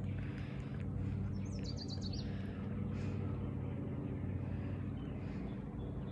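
A steady low engine hum, with a bird giving a short quick run of chirps about two seconds in.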